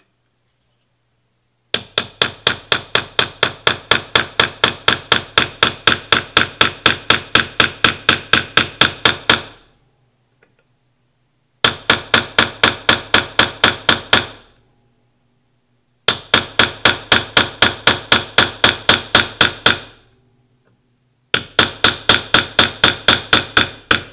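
Brass hammer tapping a steel roll pin punch, about four quick ringing taps a second in four runs with short pauses between, driving a roll pin through an AR-15 gas block and gas tube.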